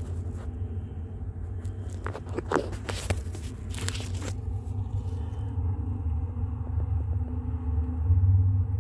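A steady low hum runs throughout. From about two to four and a half seconds in, a cluster of scraping and crackling strokes sounds, typical of a phone's microphone rubbing and brushing against rough tree bark as it is held right against the trunk.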